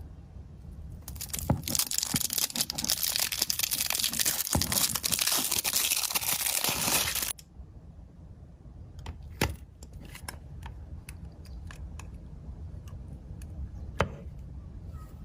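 Slime being squished and worked by hand: a dense crackling for about six seconds that cuts off abruptly, then scattered sharp pops and clicks.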